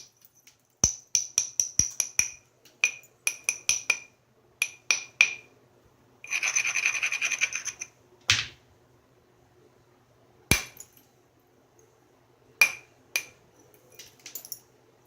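Flintknapping: a stone edge tapped with a run of quick, sharp, ringing clicks, then scraped for about two seconds as the platform is abraded, followed by a heavier knock and a few spaced taps.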